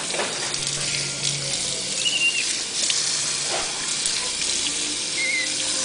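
Water running from a tap as a steady hiss, with two brief high squeaks, one about two seconds in and one near the end.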